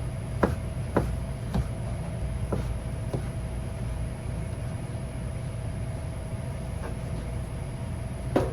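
Kitchen knife cutting marinated chicken breast on a cutting board: several sharp taps of the blade on the board in the first three seconds, one more later and a louder knock near the end, over a steady low hum.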